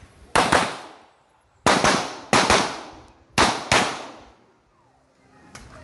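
Ferfrans 9mm pistol-caliber carbine firing four quick pairs of shots (double taps) in about three and a half seconds, each pair trailing off in echo.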